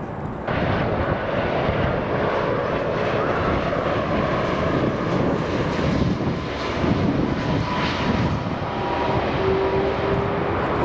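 Jet engine noise of an Airbus A330 twin-engine airliner passing low on final approach: a steady rumble that begins abruptly about half a second in, with a thin whine that drops in pitch near the end.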